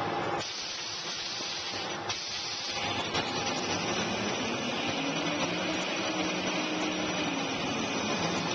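Paper towel and toilet paper production machinery running with a steady mechanical hiss and whir. The sound changes abruptly about half a second in and again about two seconds in.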